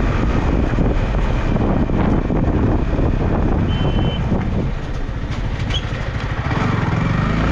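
Yamaha R15M's single-cylinder engine running as the motorcycle rides slowly along a street, with wind and road noise on the mic. A short high beep sounds a little past the middle, and the engine eases off briefly after it.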